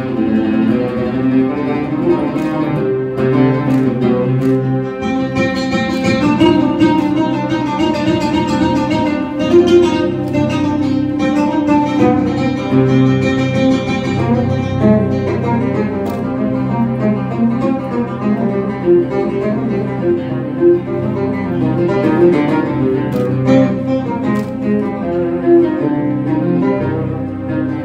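Live Middle Eastern belly-dance music played by a small band: a melody carried on keyboards with string-like sustained notes, a plucked oud, and goblet hand drums (darbukas) beating out the rhythm.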